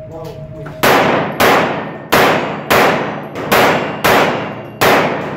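Seven pistol shots from a Glock, fired in quick pairs about half a second apart, each trailing a long echo in a concrete-walled indoor range.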